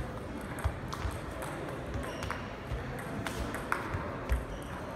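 Table tennis rally: the ball clicks sharply off the bats and the table, a string of quick ticks about every half second.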